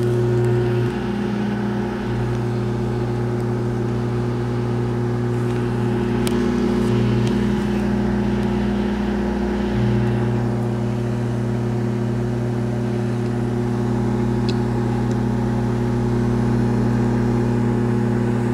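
Microwave oven running: a steady electrical hum.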